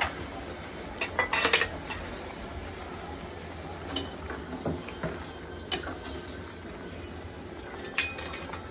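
A spoon clinking and scraping against an aluminium cooking pot as a simmering fish curry is stirred: a quick cluster of clinks about a second in, then single knocks every second or so, over a steady low hum.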